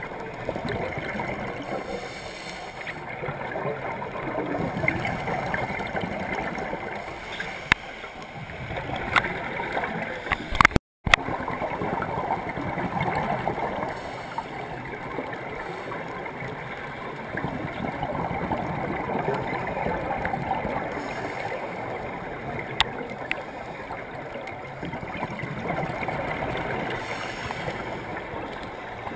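Underwater scuba ambience: the bubbling and gurgling of divers' regulator exhaust bubbles, swelling and easing every several seconds with the breathing. A few sharp clicks, and a brief dropout to silence about a third of the way in.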